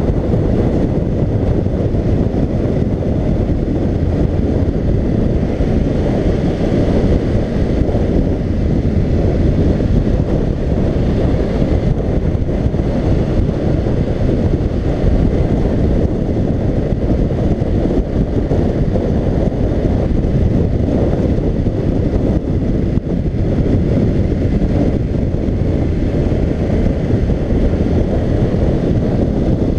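Wind buffeting the microphone of a helmet camera on a BMW F750GS motorcycle riding steadily at road speed, with the bike's engine running beneath it; the noise stays steady throughout.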